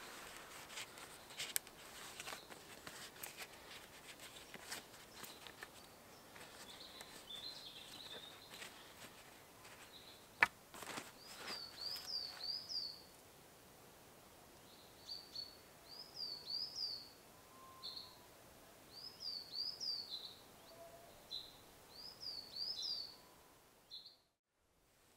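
Soft rustling and light clicks of canvas and wooden toggles being handled, with one sharp click about ten seconds in. Then a small songbird sings short phrases of quick rising-and-falling notes, repeated about every three seconds, before the sound fades out just before the end.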